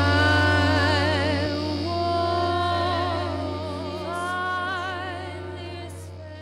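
Experimental electronic music: a steady low hum of speaker feedback beneath a woman's layered voice singing long held notes with vibrato, fading out toward the end.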